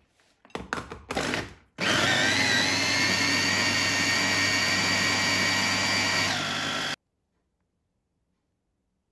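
Electric kitchen blender after a few short knocks and rattles: the motor starts and speeds up over about half a second, runs steadily for about five seconds, drops in pitch shortly before the end, and cuts off suddenly.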